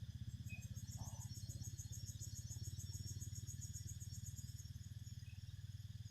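Insects calling in fast, high-pitched pulses for most of the first five seconds, over a steady low, rapidly pulsing hum.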